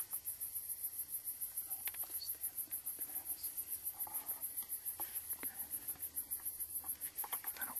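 A high-pitched insect chorus pulsing steadily at about five pulses a second, with a few faint clicks.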